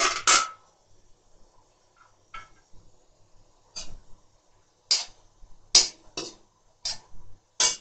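Metal spoon scraping and clinking against a steel wok while stirring chopped vegetables: about nine irregular strokes, with quiet between them.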